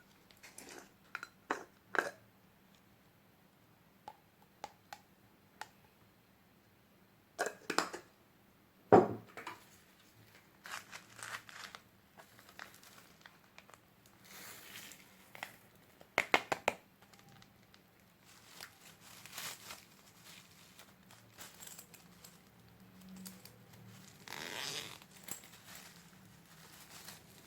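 Slime being squeezed and kneaded by hand, giving irregular squelches and crackles, with louder clusters about two seconds in, around eight to nine seconds, around sixteen seconds and near the end.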